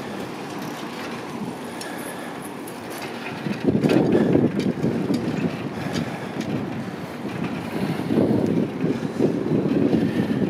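Wind buffeting the microphone of a camera riding along on a moving bicycle, over a low rumble of the ride. The buffeting swells about four seconds in and again near the end.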